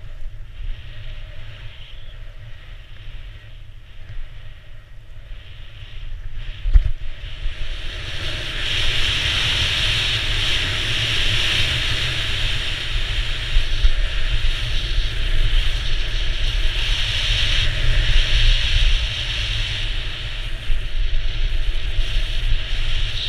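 Wind rushing over a skier's worn GoPro microphone, with skis hissing and scraping along the snow. About eight seconds in, after a single sharp knock, the noise grows louder and hissier as the skis run on groomed, packed snow.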